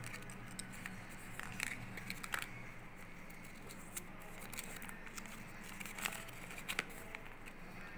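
Paper instruction leaflet rustling and crinkling as it is handled and unfolded, with small sharp clicks of plastic toy parts, the loudest crinkles about one and a half to two and a half seconds in and again near the end.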